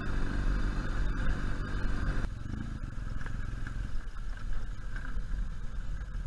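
BMW R1200 boxer-twin motorcycle engine running low and steady while the bike is ridden slowly over rough grassy ground, with scattered knocks and rattles from the bumps.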